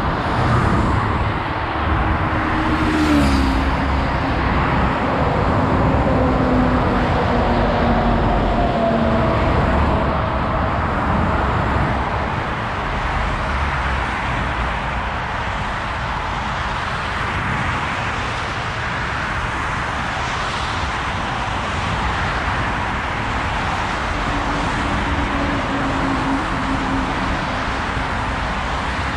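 Motorway traffic passing close by at speed: a steady rush of tyres and engines, louder over the first dozen seconds. A passing vehicle's engine drone, dropping slightly in pitch, shows near the start, and another comes a few seconds before the end.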